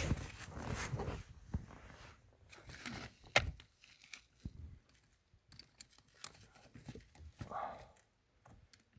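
Hand tools being handled and rummaged through: irregular clicks, light knocks and rustling, with one sharp click about three and a half seconds in.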